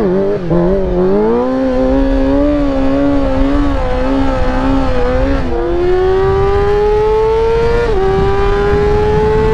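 Sport motorcycle engine under way, its pitch wavering for the first half, then rising steadily as it accelerates. About eight seconds in the pitch drops sharply with an upshift, then it climbs again.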